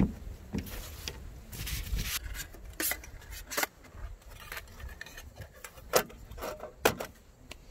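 Folding camp table being unpacked and set up: a stuff sack rustles, then its metal leg frame and slatted top click and clack as they are unfolded and laid on wooden decking, with a few sharp knocks.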